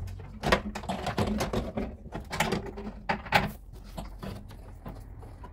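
Irregular clicks, knocks and rattles of plastic and sheet-metal parts being handled inside a car door with its trim panel off. They are loudest over the first three seconds or so, then die down.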